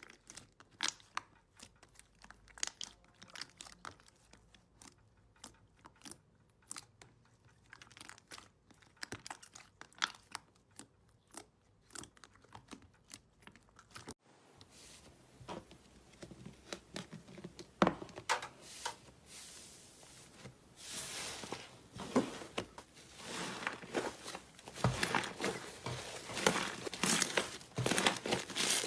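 Slime being squeezed and pressed by hand, giving a run of sharp clicks and pops. About halfway through it cuts to denser, louder crackling.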